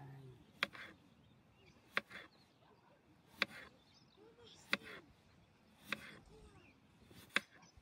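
Sharp single strikes repeated at an even pace, about one every 1.3 seconds, six in all, like steady chopping or hammering.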